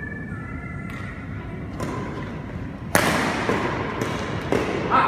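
Badminton rally: sharp hits of rackets on a shuttlecock, with footfalls on the court floor, echoing in a large hall. A couple of faint hits in the first half, then from about three seconds in a quick run of louder hits about half a second apart.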